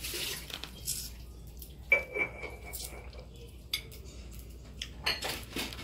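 Dishes and cutlery clinking on a dining table in small scattered knocks. About two seconds in, one sharp clink rings on clearly for nearly two seconds.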